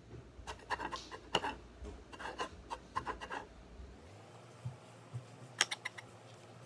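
Makeup handling noises: short clicks and taps with scratchy brush-on-powder rubbing, as of a brush worked in a plastic blush compact, then a quick cluster of clicks near the end.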